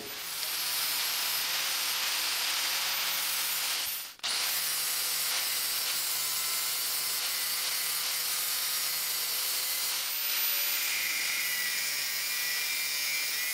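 Angle grinder with a thin disc cutting sheet metal: a steady motor whine under the hiss of the disc biting the metal. It breaks off briefly about four seconds in and starts again.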